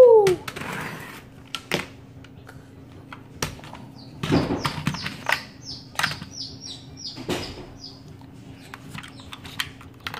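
Plastic toys clicking and knocking as they are handled and set down on a wooden floor, with a short rising-and-falling vocal hoot at the start and a run of high bird-like chirps about five seconds in.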